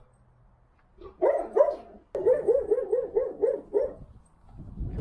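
Dog barking: a few barks about a second in, then a quick run of about eight barks, roughly four to five a second.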